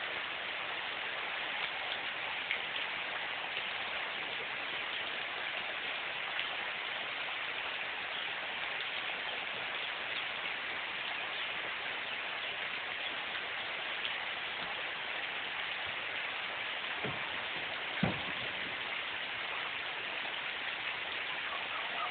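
Heavy rain pouring steadily, with two louder taps near the end.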